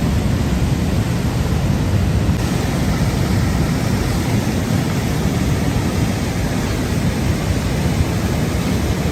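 Floodwater rushing, a loud steady noise heaviest in the low range with no break or rhythm.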